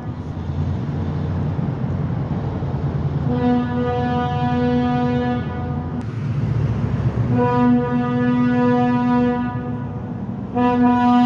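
EMD switcher locomotive's air horn sounding long blasts for a grade crossing: two of about two seconds each, and a third starting near the end, over the low rumble of the diesel locomotive.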